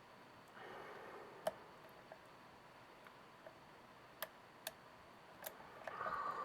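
Small, sharp metallic clicks, about six of them spaced irregularly, from lock picking tools working in a Kwikset SmartKey lock.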